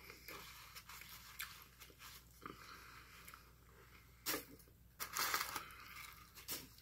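A person chewing and eating fast food close to the microphone, mostly faint, with a short crunchy burst about four seconds in and a longer one about a second later.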